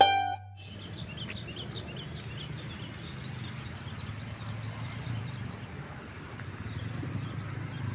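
Motorcycles running as they ride across a railway level crossing: a steady low engine and traffic noise, with a run of faint high chirps in the first few seconds.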